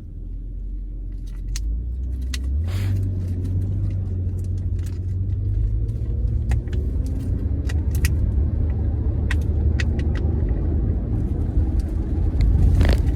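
Car engine and road rumble heard from inside the cabin, growing louder as the car picks up speed, with scattered small clicks throughout.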